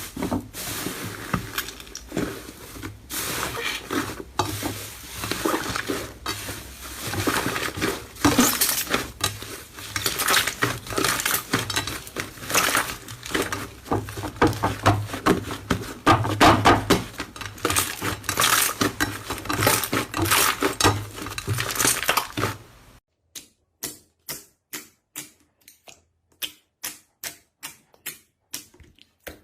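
Slime being squeezed and poked by hand, with a dense run of wet crackling and popping. About 23 seconds in it switches abruptly to separate crisp clicks, about three a second, with silence between them.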